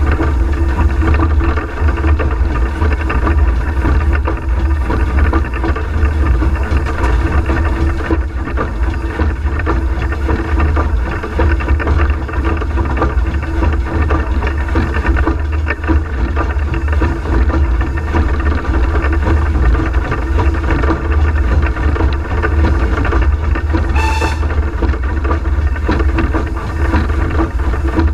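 Steady rumble and clatter inside the cab of a Peckett & Sons industrial steam locomotive running under way. A brief high squeal sounds once, about four seconds before the end.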